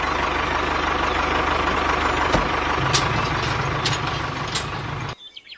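Mini tractor's small engine running steadily with a fast, even putter, then cutting off suddenly about five seconds in.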